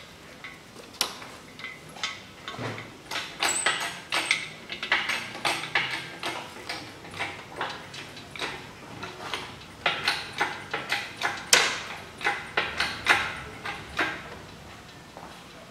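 An irregular run of sharp metallic clicks and clanks, bunched in places at about two to three a second, from hands-on work in a car's engine bay with a hoist chain and hand tools.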